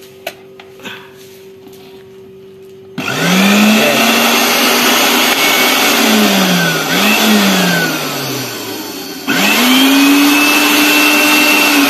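Philips blender's brushed motor run without a jar on a test after new carbon brushes are fitted: after a few soft clicks it starts suddenly about three seconds in with a quickly rising whine, sags and winds down in pitch past the middle, then starts again about nine seconds in and runs on. It sounds smooth, with no vibration.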